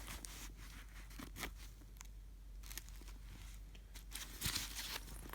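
Faint rustling and scattered light clicks of a coated-canvas handbag being handled and turned over. The handling is quietest about two seconds in and picks up again near the end.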